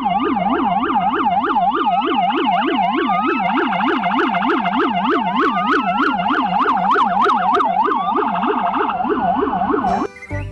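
Police siren in a fast yelp, its pitch sweeping up and down about three times a second, with a slower rising wail over it at times; it cuts off suddenly about ten seconds in.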